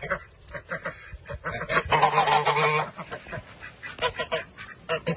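A flock of domestic ducks quacking in many quick, overlapping calls, with one louder, drawn-out call about two seconds in. The uploader takes the calling for the ducks asking for their dinner.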